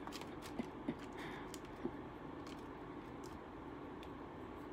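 Quiet eating sounds: faint, scattered clicks and light taps from wooden chopsticks and sushi at a plastic tray, over low room tone.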